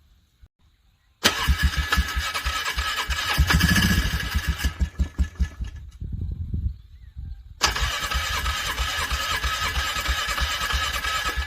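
A vehicle's engine being cranked by its starter in frigid cold, struggling to start: a cranking run of a few seconds that swells briefly as if about to catch, then a spell of uneven low chugging, then a second long cranking attempt.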